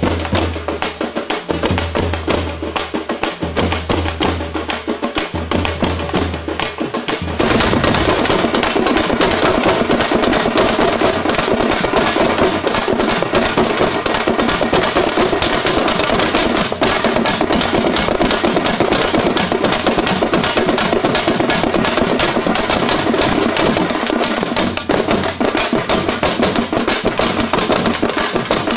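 Fast folk drumming by a troupe playing frame drums and barrel drums, in a dense, driving rhythm. About seven seconds in, the sound cuts abruptly to louder, fuller drumming.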